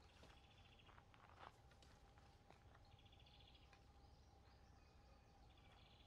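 Near silence: faint outdoor ambience with a faint steady hum and three short, rapid, high trills spaced a few seconds apart, plus a few faint clicks about a second in.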